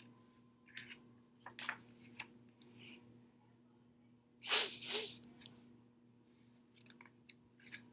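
A woman acting out a sneeze, a two-part 'ah-choo', about four and a half seconds in. Faint clicks and rustles come before it.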